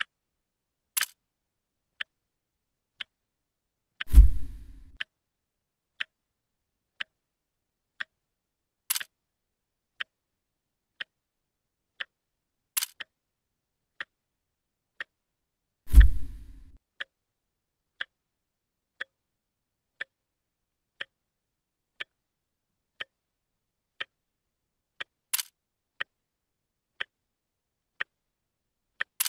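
Clock ticking steadily, one tick a second, a few ticks sharper than the rest. Two dull low thumps, about 4 and 16 seconds in, are the loudest sounds.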